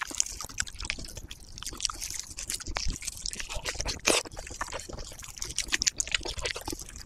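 Close-miked wet, sticky clicks and squelches of plastic-gloved hands tearing apart sauce-glazed roast meat, with one louder snap about four seconds in; biting and chewing on a torn piece near the end.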